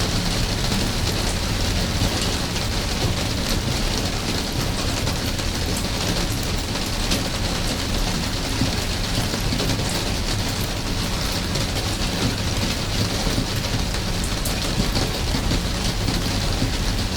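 Steady rain falling, an even hiss with many scattered drops ticking.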